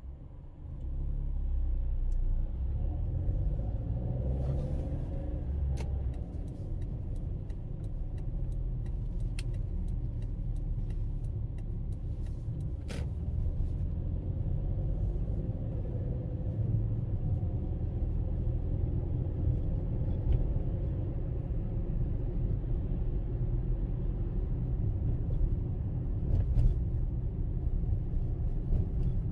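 A car driving through town, heard from inside: a steady low road and engine rumble that grows louder about a second in, with a few faint clicks.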